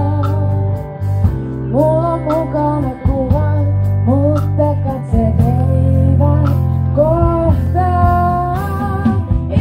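Live band playing loud amplified music: electric guitars over a strong steady bass, with a singer carrying the melody.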